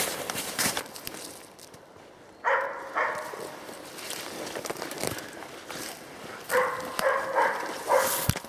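A hunting dog bay-barking at a wild boar it is holding at bay: two barks about two and a half seconds in, then a run of about four more near the end. Footsteps crunch through snow and brush in between.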